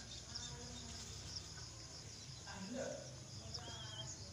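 Short high chirps repeating steadily, a little under twice a second, over a low steady hum, with a brief wavering whistle-like call near the end.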